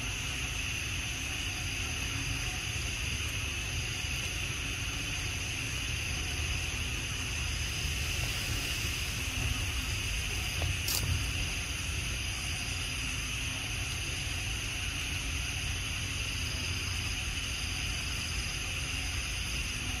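Steady outdoor ambience of a high, even insect chorus that holds without a break over a low rumble, with one sharp click about eleven seconds in.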